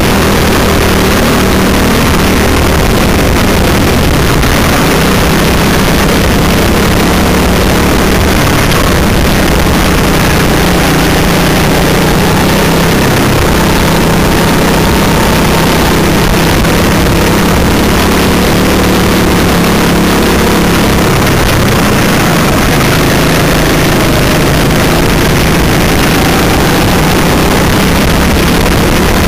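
Go-kart engine running hard throughout at racing revs, heard from the driver's seat, its pitch wavering up and down with the throttle, over a constant hiss of wind and tyre noise.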